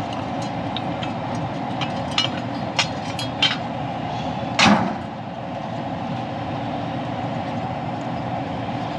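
Metal knocks and clinks as a Carrier furnace's inducer fan motor assembly is worked loose and lifted out of its housing, about half a dozen sharp knocks with the loudest about four and a half seconds in. A steady mechanical rumble runs underneath throughout.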